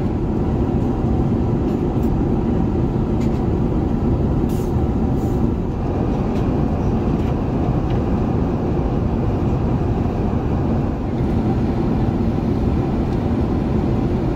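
Steady airliner cabin noise aboard an Airbus A380 in cruise: an even, deep rush of engine and airflow noise that holds unchanged.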